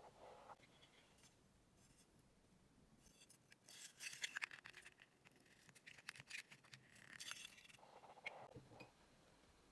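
Faint scraping and clicking of small metal and plastic parts as an iPod mini's internal assembly is handled and slid into its aluminium shell, in two short clusters of scratchy clicks with a sharper click near the end.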